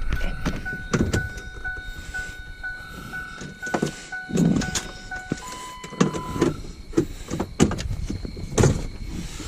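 An electronic beep repeating about twice a second, changing to a steadier tone of a different pitch about five and a half seconds in. Knocks and low thumps of handling or movement run through it.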